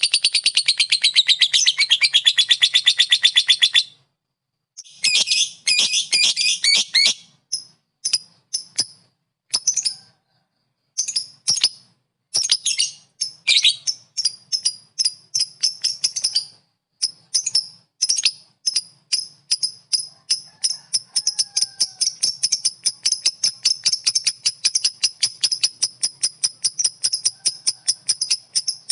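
Lovebird giving its long rapid chattering trill (ngekek) for about four seconds. After a short break it gives bursts of sharp, high chips that settle into a steady string of about three chips a second.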